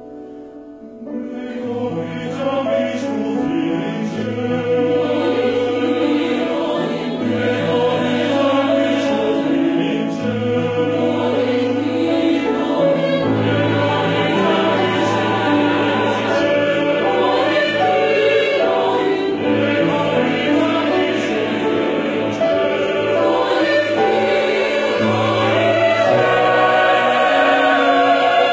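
Mixed choir singing with piano accompaniment. The voices come in about a second in and the sound grows fuller and louder across the passage.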